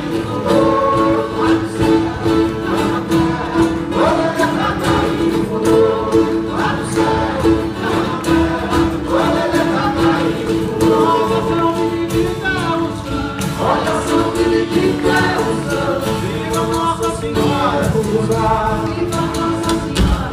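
Live acoustic folk ensemble of guitars, cello and a hand-held drum playing while several voices sing together over steady strumming and held notes.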